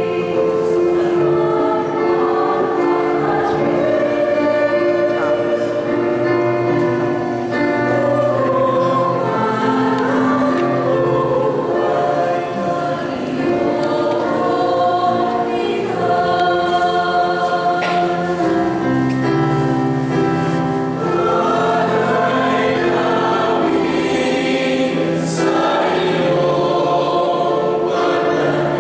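A choir singing a hymn, with long held notes that change every second or two.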